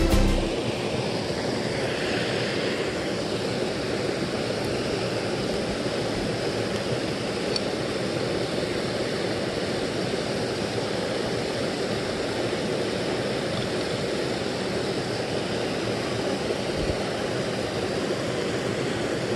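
A small creek waterfall spilling over a low ledge: a steady rush of falling water.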